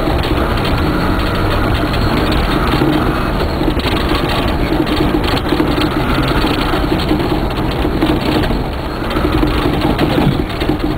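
Off-road 4x4's engine running steadily under load, heard from inside the cab, with mud spattering against the windscreen and bodywork.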